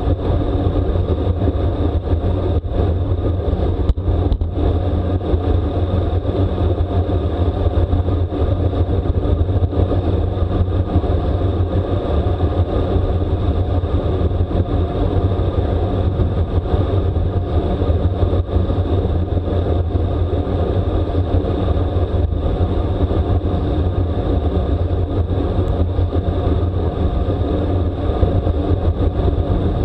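Steady wind rush buffeting the microphone of a camera on a road bike ridden at racing speed, a low, unbroken rumble.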